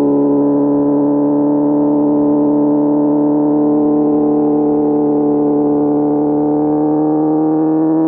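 Inline-four motorcycle engine running steadily under throttle at cruising speed, its pitch rising slowly as it pulls.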